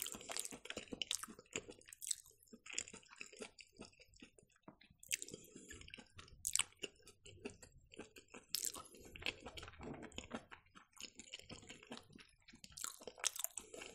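Close-miked chewing of fried mushrooms, a faint string of irregular mouth clicks and smacks.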